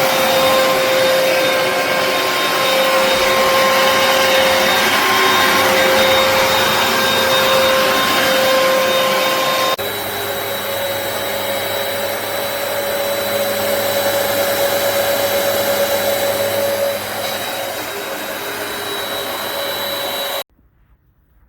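Hoover PowerDash Pet carpet cleaner running: a steady motor whine over a rushing suction noise. The sound changes abruptly about ten seconds in, then cuts off suddenly near the end.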